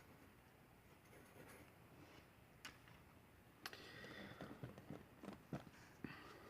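Near silence: quiet room tone with a few faint clicks and soft scratching, handling sounds about halfway through.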